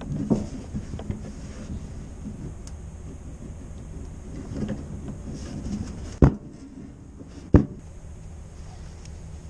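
Stainless steel double sink's cut divider being bent down by hand, the thin sheet metal giving two sharp knocks a little over a second apart about six seconds in, with smaller bumps near the start over a low background rumble.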